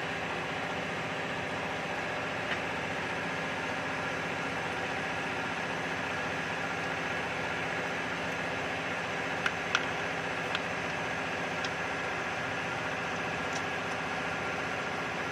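Steady mechanical hum of a running motor or fan, with a few light clicks about ten seconds in and once more near the end.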